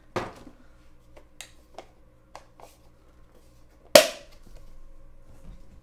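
Hard plastic parts of a Nespresso recycling bin clicking and knocking as they are handled. There is a sharp click at the start, a few lighter taps, and the loudest sharp snap about four seconds in.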